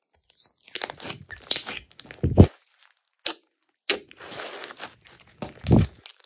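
Slime being squished and stretched by hand, crackling and popping in irregular bursts.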